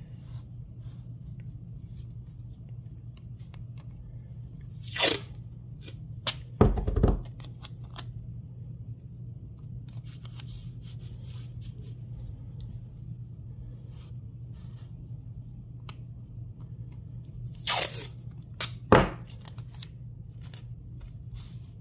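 Strips of tape torn off a roll in short rips, a couple about five to seven seconds in and two more near the end, with a light thump among the first ones. The tape is going on to hold the back liner fabric down in an embroidery machine hoop. A steady low hum runs underneath.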